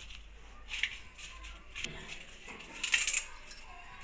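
Stone-on-stone knocks and scrapes of a batta roller on a sil grinding slab as green chillies and leaves are crushed: several sharp clicks, the loudest about three and a half seconds in.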